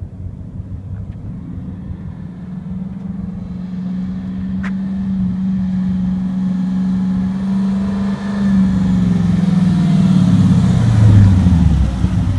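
Straight-piped Mercedes-Benz CLK55 AMG V8 with its muffler deleted, driving up. Its exhaust holds a steady note that grows louder as the car approaches, then drops in pitch as the car comes close and slows near the end.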